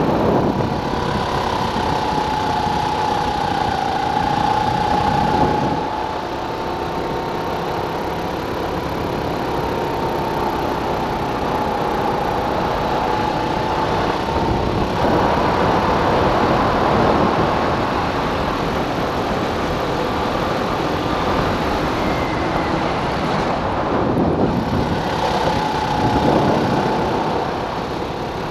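Go-kart engine running hard from the driver's seat, its pitch wavering with the throttle and dropping briefly about six seconds in and again near the end as the kart slows for corners.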